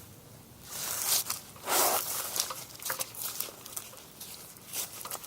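Ratchet and 17 mm socket being strained against a stuck oil drain bolt: scuffing, a few light metallic clicks, and a short breathy grunt of effort just before two seconds in.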